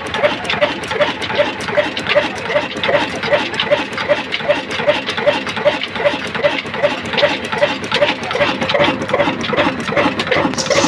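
Old stationary diesel engine running steadily: a dense mechanical clatter with a regular beat of about four a second. A hiss joins in near the end.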